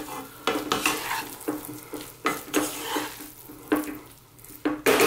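A wooden spatula stirring dry-fried potato and cauliflower around a non-stick pan, scraping the pan in quick, irregular strokes about two or three a second.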